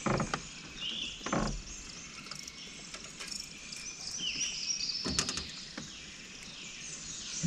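Swamp ambience of birds chirping over and over in short, high calls that sweep up and down in pitch, with a soft knock about a second and a half in and a few light clicks about five seconds in.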